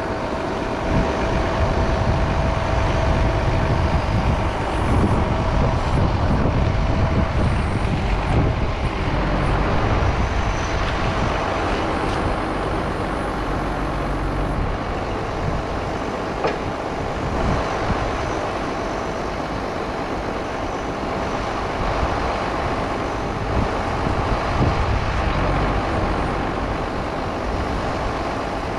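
Engine-driven generator running steadily.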